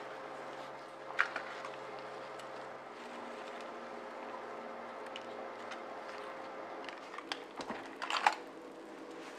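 Quiet steady room hum, with a light tap about a second in and a short run of small clicks and knocks near the end as a metal baking pan is handled in oven mitts.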